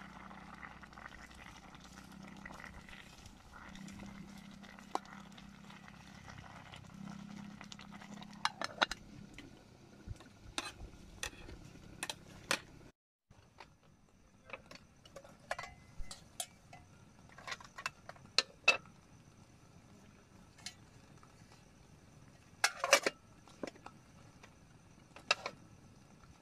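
Scattered light clinks and knocks of camp cookware and utensils being handled, broken by a short cut about halfway through.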